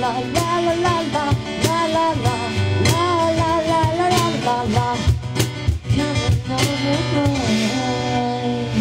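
Live acoustic band playing: a singer over acoustic guitar, cajon hits and keyboard. Near the end the music settles into long held notes.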